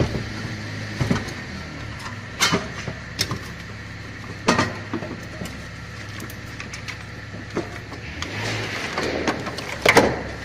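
Steady low mechanical hum, such as a running vehicle engine, with irregular sharp knocks and clanks on top, the loudest near the end.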